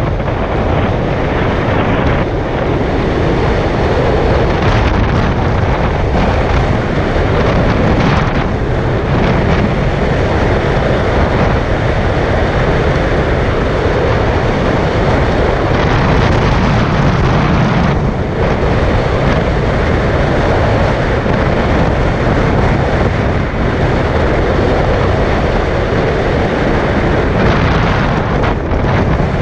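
Steady rush of wind over the microphone with the tyre and road noise of a car driving along a road.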